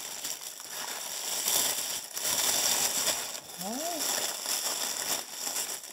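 Thin plastic bag crinkling and rustling as it is pulled and worked off a statue piece by hand.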